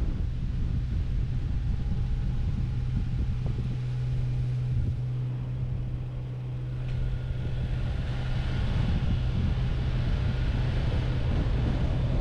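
A car driving on a road: a steady engine and tyre hum over a low rumble of wind on the microphone, with road hiss growing about seven seconds in.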